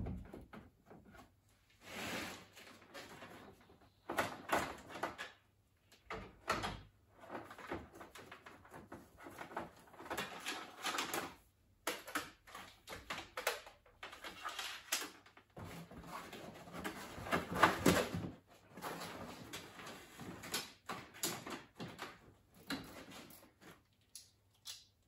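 Irregular rustling, clattering and knocks of hands handling parts and tools, in bursts of varying length with short pauses between them.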